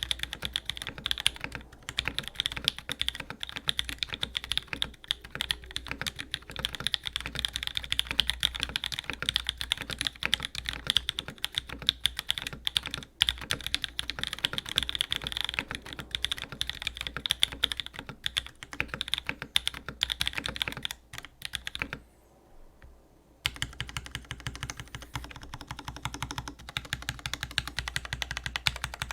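Typing on a Smith and Rune Magnus175 mechanical keyboard: JWICK Black nylon linear switches on an aluminium plate, top-mounted with cork dampening spacers, with a polycarbonate mid case, GMK keycaps and Cherry clip-in stabilizers, in a fast, continuous run of key strokes. The typing stops for about a second and a half roughly three quarters of the way through, then starts again.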